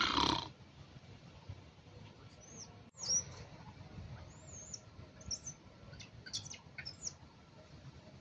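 High-pitched animal calls: a loud, brief squeal at the very start, then a string of short arched chirps and squeaks.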